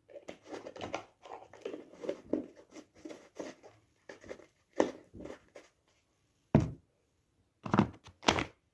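Crinkling plastic packaging of cinnamon powder being handled and opened, a run of short, soft crackles, followed by three louder, sharper sounds in the last few seconds.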